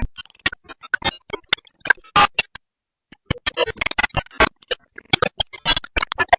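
Digital glitch sound effect: rapid, irregular stuttering chops and clicks, like a corrupted or skipping digital signal, with a brief gap a little before halfway.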